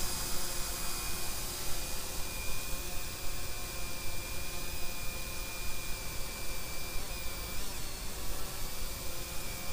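Aerocraft 1906 GPS quadcopter drone hovering, its motors and propellers giving a steady high-pitched whine and buzz.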